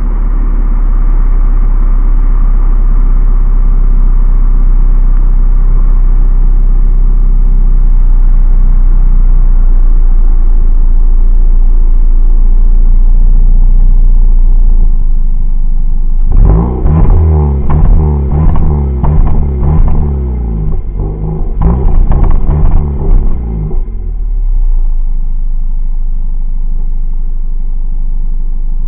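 Ford Fiesta Mk7 engine and exhaust running loud with a steady drone, then, about halfway through, revved in a string of quick blips that rise and fall in pitch for about eight seconds before settling back to idle.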